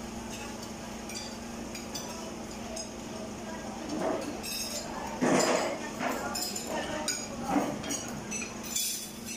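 Spoons and forks clinking and scraping on ceramic plates during a meal, in scattered small clicks over a steady low hum.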